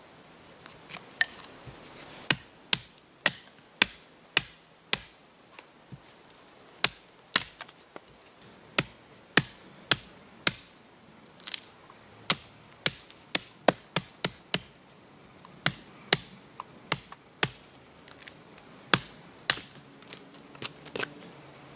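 Puma White Hunter fixed-blade knife chopping into a wooden stick held upright on a stump: a long series of sharp chopping knocks, about one to two a second at an uneven pace, some coming in quick pairs.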